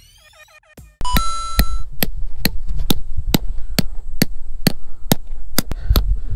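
A short electronic beep, then a run of sharp knocks, about two a second.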